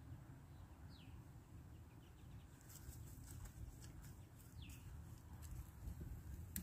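Quiet outdoor ambience with a low rumble and a few short, high, falling bird chirps, about one second and four and a half seconds in, with faint ticks from about three seconds on.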